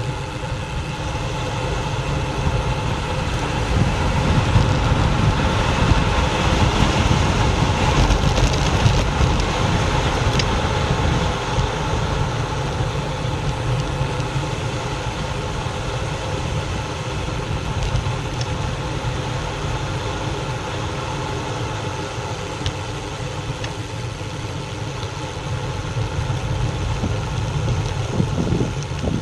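Wind buffeting the microphone of a bike-mounted action camera, with road rumble, during a fast bicycle descent on a tarmac lane. A steady low rush that swells a little for a few seconds early on, then eases.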